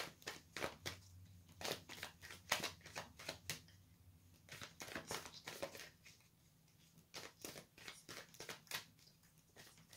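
Tarot cards being shuffled by hand: a run of quick, soft card flicks and slaps, thinning out for about a second around six seconds in before picking up again.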